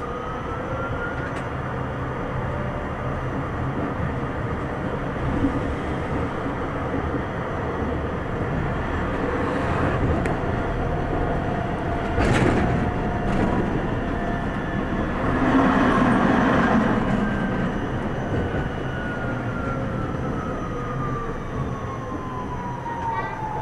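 Tram running on its rails from inside the driver's cab, with steady wheel and track rumble. A traction-motor whine rises in pitch as the tram picks up speed near the start and falls steadily near the end as it brakes for the next stop. There is a brief louder rush about halfway through.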